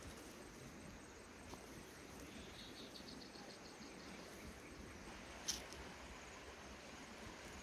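Faint outdoor ambience with a short insect trill, a quick run of evenly spaced high chirps lasting about a second, and a single sharp click about five seconds in.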